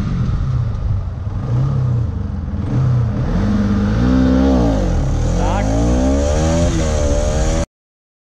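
Bajaj Pulsar RS 200's single-cylinder engine accelerating hard through the gears: the revs climb and drop back at each upshift several times, getting louder about three seconds in. The sound cuts off suddenly near the end.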